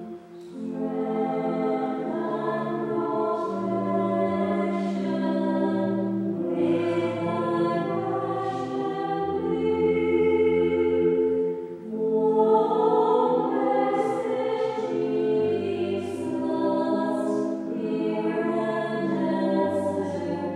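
Church choir singing a slow, sustained piece over steady low instrumental notes, pausing briefly between phrases about twelve seconds in.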